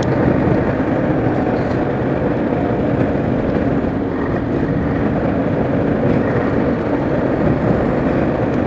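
Renault Premium lorry's diesel engine and tyre noise heard from inside the cab, cruising steadily through road tunnels.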